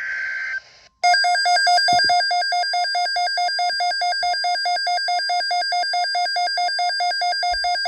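The end of a SAME digital alert header, a steady buzzy data tone, cuts off about a second in. A weather alert receiver's built-in alarm then sounds: a loud, rapidly pulsing warble held for about seven seconds, signalling an incoming National Weather Service severe thunderstorm watch.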